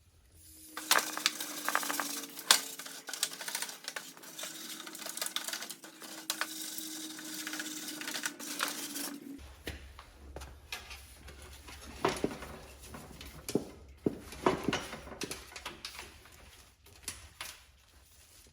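Aerosol degreaser spraying in a long steady hiss with a faint hum for about eight seconds, then stopping suddenly. Scattered clicks and knocks of handling follow.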